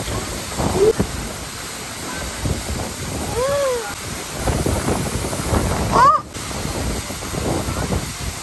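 Steady roar of Jeongbang Waterfall with wind buffeting the microphone, and a few brief voice-like calls rising and falling over it.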